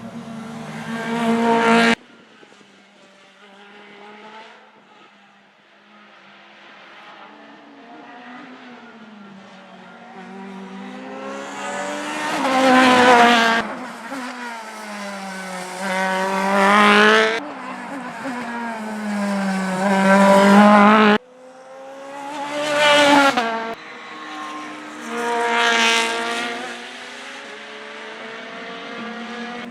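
Racing cars passing at speed one after another, engines at high revs, each rising in pitch as it approaches and dropping as it goes by. The sound cuts off abruptly twice.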